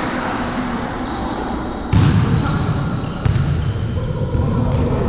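Volleyball thuds as the ball is hit or bounces on the court: a loud one about two seconds in and another a little over a second later, over steady court noise.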